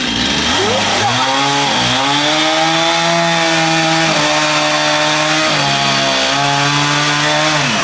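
Two-stroke gas chainsaw revving up to full throttle and cutting through the wood of a dead orange tree, its pitch sagging briefly a few times under load. The engine drops back toward idle as the throttle is released near the end.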